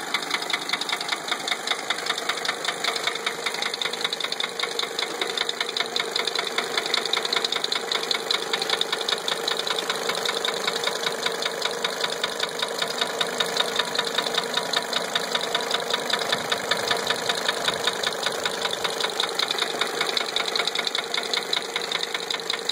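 1980 Mercedes 300SD's five-cylinder turbodiesel engine idling with a steady, fast rhythmic knock. The knock is unchanged by a fresh valve adjustment, so valve clearance is not its cause.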